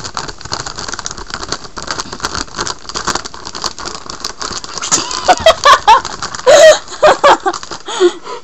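Foil-lined chip bag crinkling and rustling in a dense, crackly stream as a hamster scrabbles around inside it and the bag is held. In the second half, short high-pitched human voice sounds break in over it several times, louder than the crinkling.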